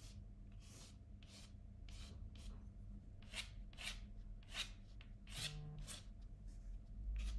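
Pencil scratching on paper in a series of short, faint strokes, roughly one or two a second, as an oval outline is sketched.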